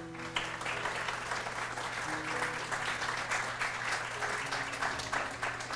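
Audience applauding, a dense patter of many hands clapping that eases off near the end, with soft background music underneath.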